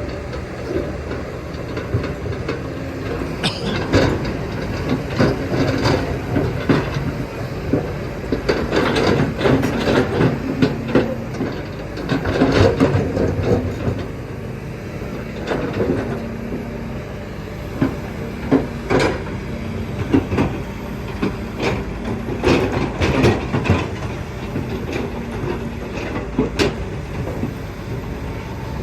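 Kobelco excavator's diesel engine running steadily under load, with repeated knocks and scrapes of the bucket against the ground.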